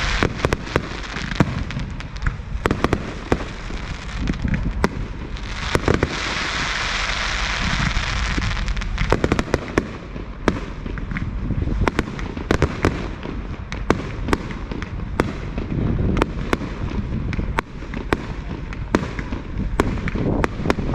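Fireworks display: shells bursting in many sharp bangs and crackles, irregular and overlapping. About six seconds in, a dense crackling hiss lasts about three seconds.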